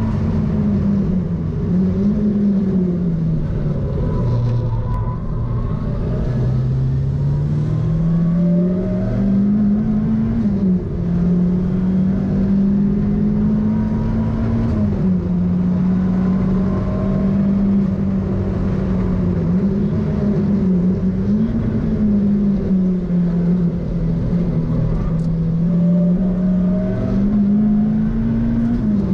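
Turbocharged Mazda MX-5's four-cylinder engine under hard track driving, heard from inside the cabin. Its note climbs steadily and then drops sharply again and again as the car changes gear and lifts for corners, over steady road and wind noise.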